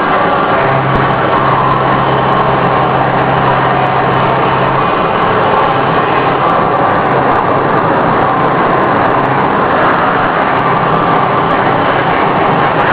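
CNC machining center milling gray cast iron with a ball-nose insert cutter: steady, loud cutting and machine noise, with a low hum that weakens about five seconds in.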